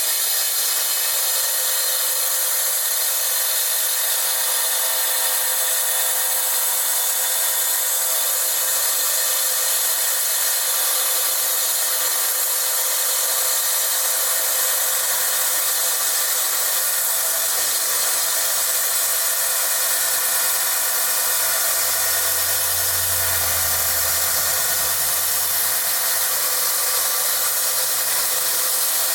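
Felker Tile Master tile saw running steadily as its diamond blade cuts through rock. A lower hum joins in for several seconds about two-thirds of the way through.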